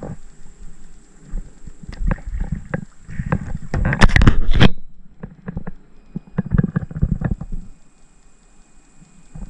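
Small fish splashing at the surface beside an inflatable kayak and being lifted aboard, with knocks and rubbing right at the chest-mounted camera's microphone, loudest about four seconds in as an arm sweeps across the camera. A run of small clicks and knocks follows as the fish is handled for unhooking.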